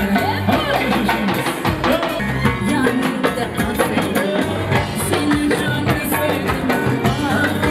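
Uzbek pop song with a singer's voice over keyboard and busy drums and hand percussion.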